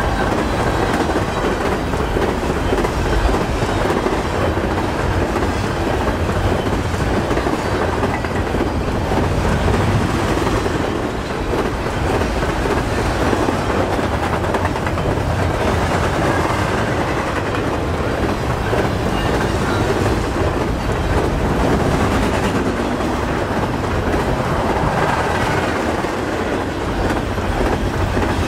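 Double-stack container well cars of a freight train rolling past at speed: a steady noise of steel wheels running on the rails.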